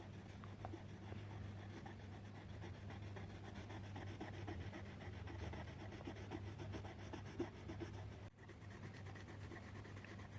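Coloured pencil scratching on paper, a faint steady run of small back-and-forth shading strokes.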